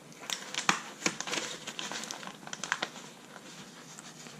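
Sheet of adhesive sign vinyl crinkling and crackling in the hands as its backing paper is worked loose and peeled apart: irregular sharp crackles, thickest in the first few seconds and thinning toward the end.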